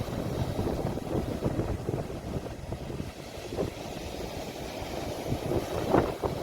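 Sea waves and wind buffeting a phone's microphone: an uneven low rush with a few stronger gusts or splashes near the end.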